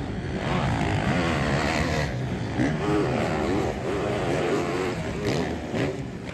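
Several motocross bikes racing, their engines revving up and down in waves as the riders power up and over the track's climbs.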